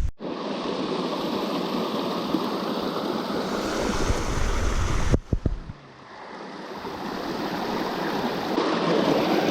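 Steady rush of running water. It drops away abruptly about five and a half seconds in, then swells back up.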